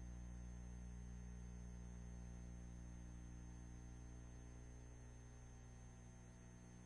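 Near silence: a steady low electrical hum with a faint high whine, unchanging throughout.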